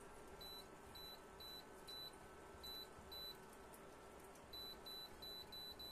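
Shinestar induction cooktop's touch control panel beeping: about a dozen short, high beeps, one per button press, in two quick runs with a pause of about a second between them, as the power setting is stepped up from 1400 to 2000 W.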